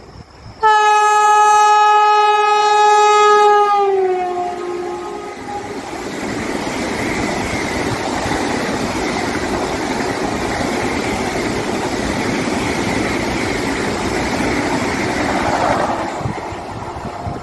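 Vande Bharat Express electric trainset sounding its horn in one long blast of about three seconds, which drops in pitch as the front of the train passes. About ten seconds of rushing wheel and rail noise follow as the coaches go by at high speed, easing off near the end.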